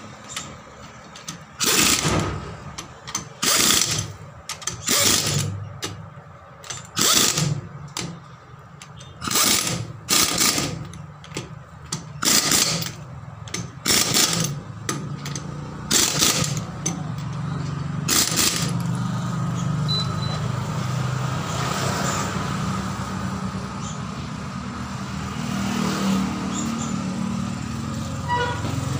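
Compressed air hissing in a dozen or so short blasts, roughly one a second, as an air chuck is pressed on and off the valve to inflate a 195 R15 mini truck tyre. About two-thirds of the way in the blasts stop and a steady low hum remains.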